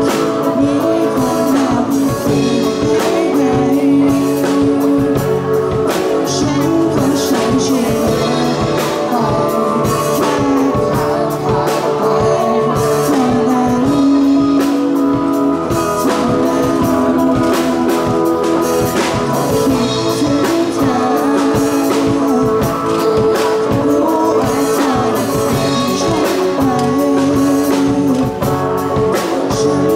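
Live rock band playing a Thai pop-rock song: a male lead vocal over electric guitars, keyboard and a drum kit.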